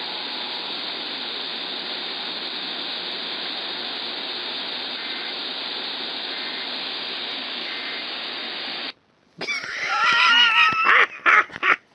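Steady hiss of radio static through a receiver: dead air on the relaying station, with no message carried. It cuts off abruptly about nine seconds in, and after a brief gap a louder, warbling sound begins.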